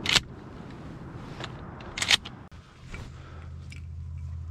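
Two sharp cracks from a shotgun in a goose blind, about two seconds apart, each a quick double strike; a steady low hum sets in about three seconds in.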